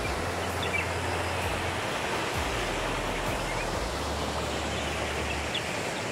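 Steady rushing of water from a monsoon-fed waterfall and stream over rocks.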